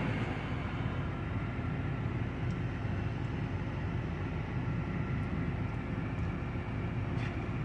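Steady low rumble and hum of a car, heard from inside its cabin.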